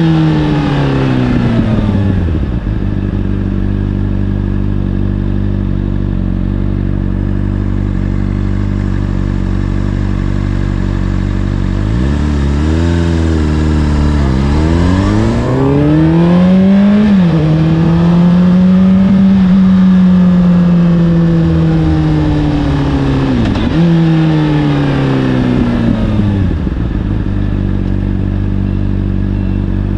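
Honda CBR600RR inline-four through an Akrapovic exhaust, revs falling to idle at the start. It idles steadily for about ten seconds, then pulls away, the revs rising in steps through the gears. It holds a steady cruise, blips once near the end of the cruise, and drops back to idle.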